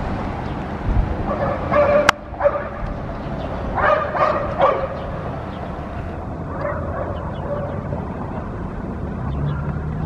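A dog barking in short runs of a few barks, with a sharp click about two seconds in, over a low background rumble.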